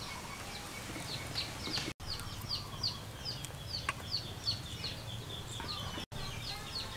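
A bird chirping repeatedly: short, high notes that fall in pitch, about three a second, kept up steadily. The sound drops out completely twice, briefly, about two and six seconds in.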